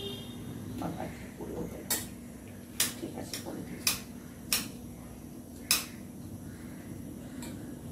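Kitchen knife cutting vegetables, about seven sharp, irregularly spaced knocks of the blade on the cutting surface, with a steady low hum behind.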